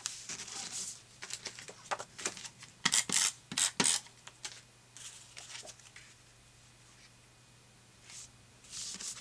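Hands rubbing and smoothing a photo down onto paper, then about four quick rasping strokes of an adhesive tape runner applying adhesive to the back of a photo, three to four seconds in. Paper rustles again as the photo is laid into place near the end.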